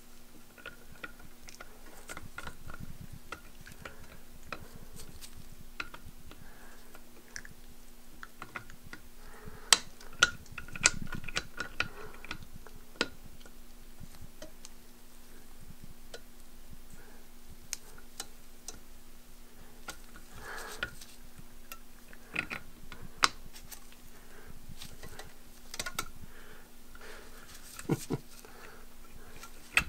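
Scattered small metal clicks and scrapes as a spring-loaded cap is fitted by hand into the body of a super spacer indexing fixture, over a steady electrical hum.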